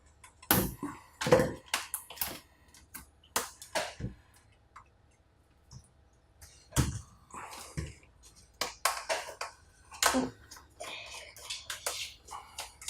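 Irregular sharp clicks and taps of small screws and plastic laptop parts being handled and set down during disassembly.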